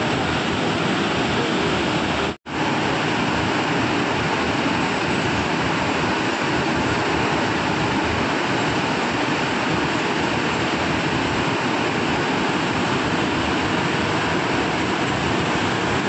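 Steady rushing of Unchalli Falls on the Aghanashini River, a high waterfall in full flood with muddy brown water. The sound cuts out for an instant about two and a half seconds in.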